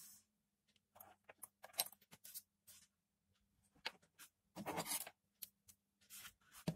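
Faint handling noises: scattered small clicks and rustles as an earphone and its thin cable are laid on a tabletop and a pair of scissors is picked up, with a longer rub about five seconds in.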